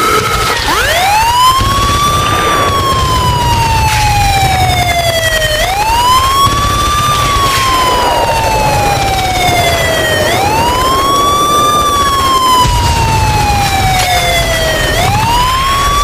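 Emergency alert warning siren wailing: each cycle rises quickly in pitch for about a second and a half, then slides down slowly, repeating about every four and a half seconds, with a low rumble underneath.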